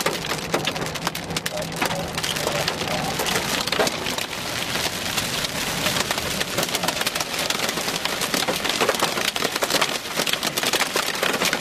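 Hail striking the roof and windshield of a moving vehicle, heard from inside the cabin: a dense, continuous clatter of many hits, with no let-up.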